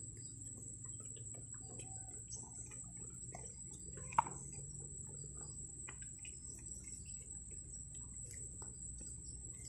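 Small horse eating apple pieces and grass off the ground: faint, scattered crunching and tearing clicks, over a steady high-pitched whine. One short sharp sound about four seconds in.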